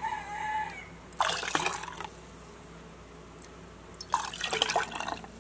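Chicken broth poured from a ladle through a plastic funnel into a glass pint jar, twice, each pour a splashing run of liquid lasting about a second. A brief squeak at the very start.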